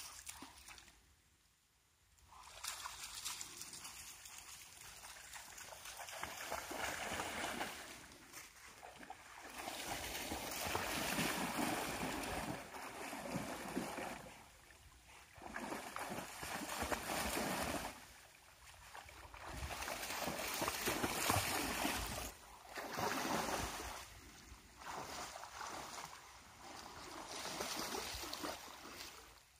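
A Rottweiler wading and bounding through a shallow river, splashing water in rushing swells of several seconds with brief lulls between.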